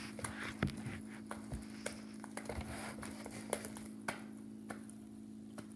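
Slime being kneaded and squished by hand, giving irregular small sticky clicks and pops, several a second, over a steady low hum.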